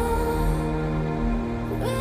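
Background music with slow, held melodic notes.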